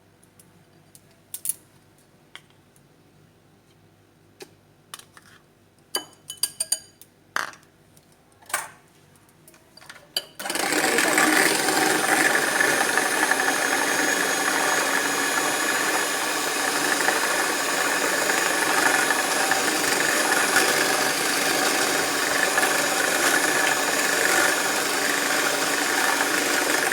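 A few light clicks and knocks of utensils, then about ten seconds in an electric mixer starts up and runs steadily, beating cake batter of curd, sugar and butter.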